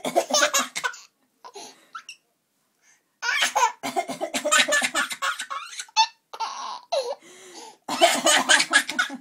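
A baby laughing in bouts of quick repeated pulses. The laughing breaks off after about a second, comes back after a two-second pause, and comes again strongly near the end.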